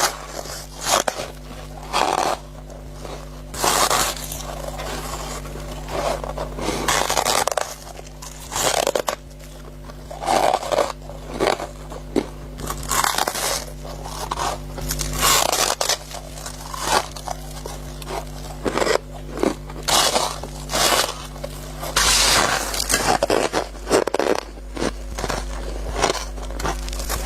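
Close-up bites and chewing of squeaky white freezer-frost ice, crunching in irregular bursts every second or so.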